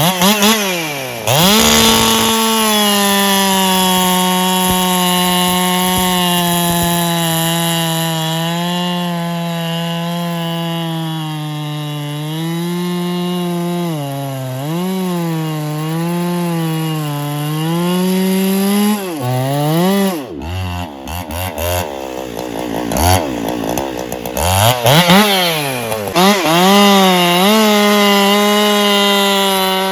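Solo 681 two-stroke chainsaw running at full throttle while bucking firewood, its engine pitch sagging and wavering as the chain loads up in the wood. About twenty seconds in it drops off the throttle for a moment, then revs back up and cuts again.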